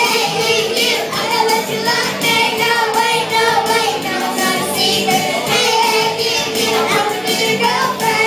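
Two girls singing karaoke through microphones over an amplified pop backing track with a steady beat.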